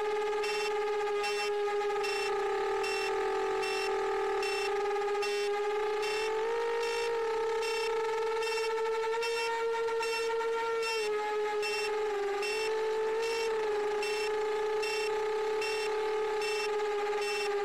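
Motors and propellers of a 7-inch FPV quadcopter (Emax Eco 2807 1300kv motors on 6S) whining steadily in low cruising flight, the pitch rising a little about six seconds in and again near ten seconds, then easing back. A faint high ticking, about twice a second, runs under it.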